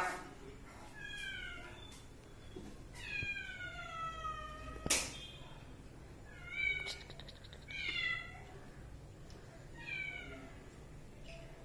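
A cat meowing repeatedly: about six separate meows, mostly falling in pitch, the longest one about three seconds in. A single sharp click a little before the middle is the loudest moment.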